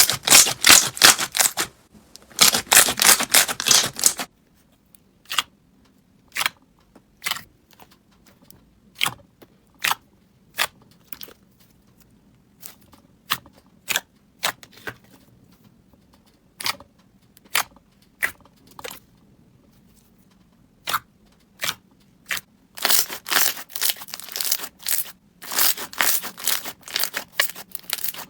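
Slime being squished and stretched, making crisp crackling clicks. The clicks come thick and fast for the first few seconds, thin out to single sharp pops about once a second, then turn into dense crackling again near the end.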